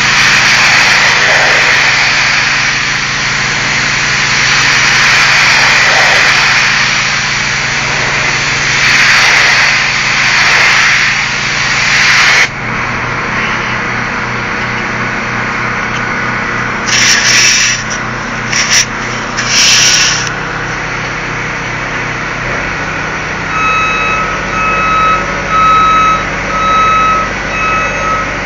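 Pressure-washer spray hitting a brick wall, a loud steady hiss that cuts off suddenly a little under halfway through. A low motor hum carries on with three brief squirts of spray. Near the end a vehicle's reversing alarm beeps at an even pace.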